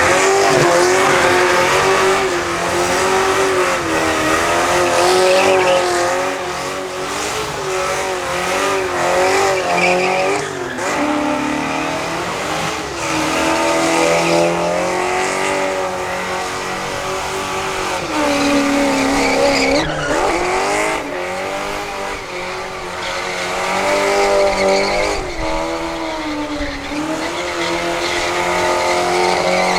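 Car doing a burnout: the engine is held at high revs, wavering and dipping in pitch a few times, while the spinning tyres squeal and hiss against the pavement.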